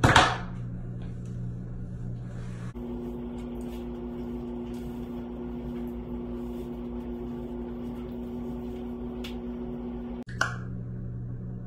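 A steady machine hum, like an appliance or fan running. Its pitch steps up about three seconds in and drops back near the end. A short burst of rustling noise comes at the very start and again near the end.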